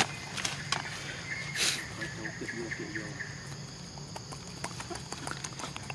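Insects buzzing steadily in tropical forest undergrowth, with scattered clicks and rustles of leaves and twigs as a young macaque moves through the plants; one sharper snap comes about a second and a half in.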